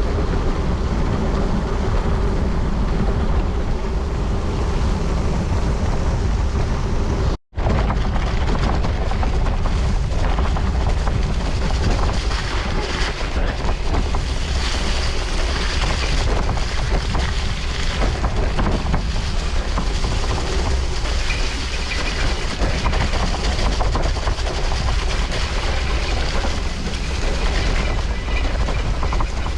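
Wind buffeting the microphone and rumble from a bicycle riding at speed on a gravel course, steady and loud, with a sudden cut to silence for a split second about seven seconds in.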